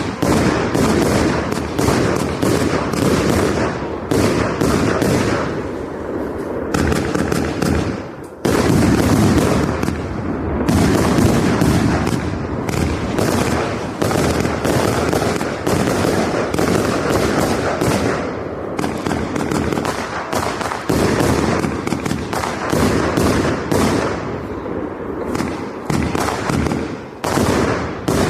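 Pyroworx Sky Wars 100-shot firework cake firing: a fast, non-stop run of shots and bursting bangs, easing briefly about eight seconds in before carrying on.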